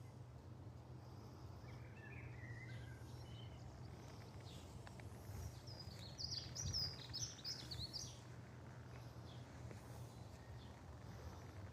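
Small songbird chirping over a steady low background hum: a brief faint twitter about two seconds in, then a louder run of quick high-pitched chirps from about six to eight seconds in.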